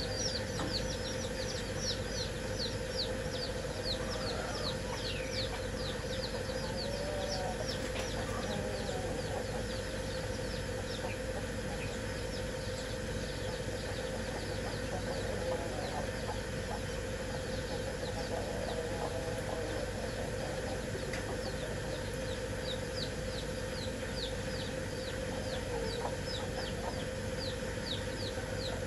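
Chicks peeping: a steady stream of short, high peeps falling in pitch, several a second. A hen gives soft low clucks now and then, over a steady hum.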